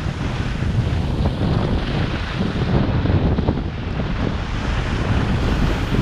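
Wind rushing and buffeting over a head-mounted GoPro Hero5's microphone at skiing speed, a loud, steady rumble, with skis hissing and scraping over packed snow underneath.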